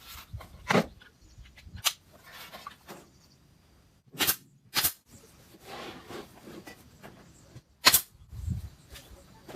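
A few sharp knocks or clicks at irregular intervals, the loudest near the end, with faint noise between them.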